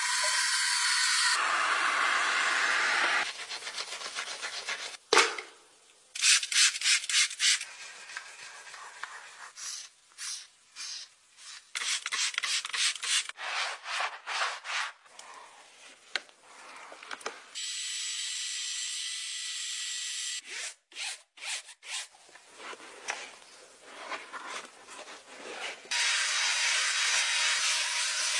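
Car-detailing sounds in quick cuts: a pressure-washer jet hissing steadily on a wheel, then rapid rhythmic brush scrubbing through foam. Near the end comes a longer steady stretch as a drill-mounted brush scrubs an interior door panel.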